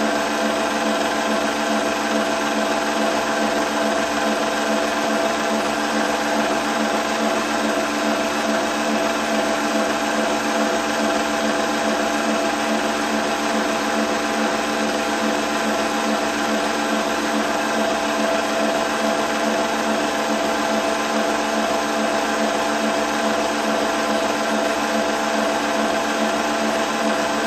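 8mm film projector running, a steady motor-and-mechanism whir that holds one even pitch throughout.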